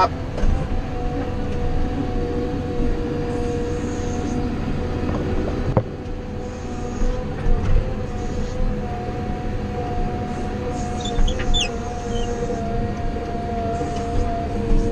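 Wheel loader driving along from inside its cab: the engine runs steadily under way with a steady high whine on top of a low rumble.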